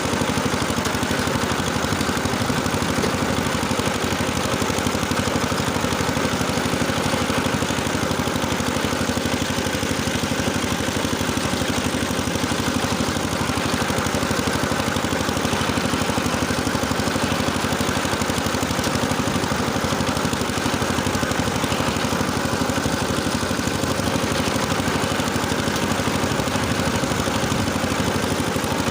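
Tractor engine running steadily under load while driving a rotary tiller through the soil.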